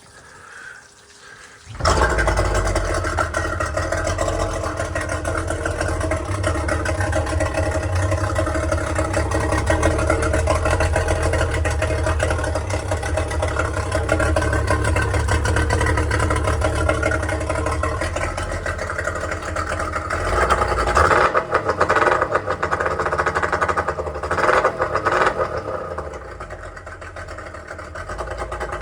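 30 hp Yamaha two-stroke outboard motor starting about two seconds in, catching at once and then running steadily at idle. It gets briefly louder twice about two-thirds of the way through, then settles a little quieter near the end.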